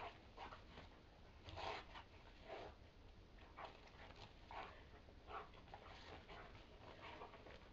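A dog panting faintly in short, irregular breaths during rough play.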